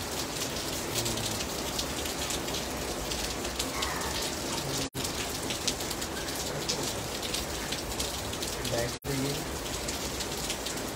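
Heavy rain falling steadily: a dense, even hiss of drops on wet ground and standing water. The sound cuts out for an instant twice, about five and nine seconds in.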